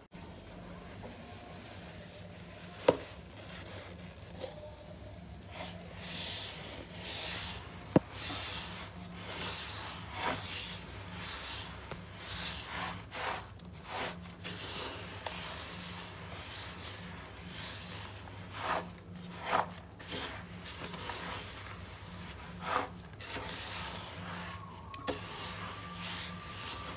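Wooden spatula stirring roasted sesame seeds and jaggery syrup in a steel pot, scraping and rubbing against the pot in irregular repeated strokes, with a couple of sharp knocks early on.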